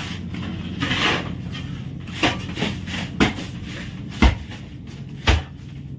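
Heavy knocks about once a second over a steady low hum, and a short scraping rush about a second in. The knocks come from the ice-packed fish hold of a fishing boat where boards and ice are being handled; the hum is the boat's machinery.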